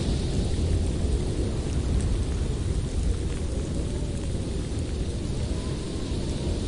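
Blizzard wind blowing steadily with a deep rumble, and a faint howl that wavers up and down in pitch in the second half.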